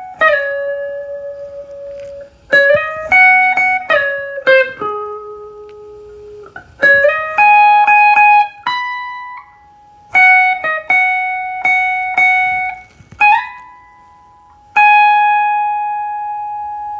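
Semi-hollow electric guitar playing a single-note reggae solo line slowly, with slides between some notes. The last note rings on and fades out.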